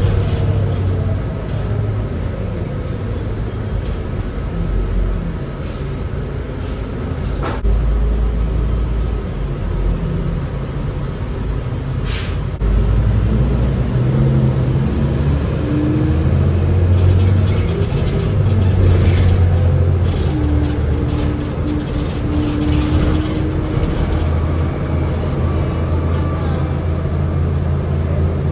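A 2005 New Flyer C40LF transit bus heard from inside the cabin while it drives: its Cummins Westport C Gas Plus natural-gas engine and Allison automatic transmission running under changing load. There is a single sharp knock about twelve seconds in.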